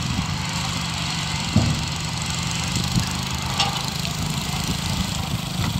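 Farm machinery engine running steadily during a sugar beet harvest, with a few short knocks, the sharpest about one and a half seconds in.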